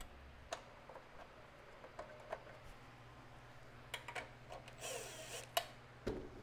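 Light clicks and taps of parts being handled, then a cordless impact driver spins a bolt on the small engine's shroud for about half a second, followed by a sharp click and a knock near the end.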